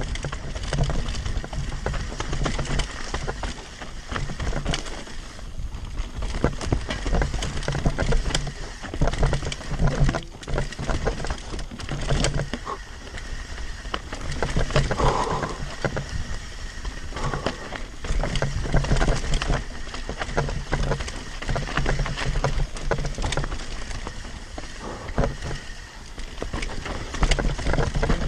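Devinci Spartan mountain bike descending rough dirt singletrack at speed: tyres on dirt and rocks, with a constant clatter of chain and frame knocks over the bumps and wind rumbling on the microphone.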